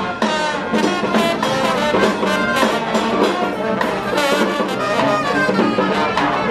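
Street brass band of trumpets, trombones and sousaphone playing, loud.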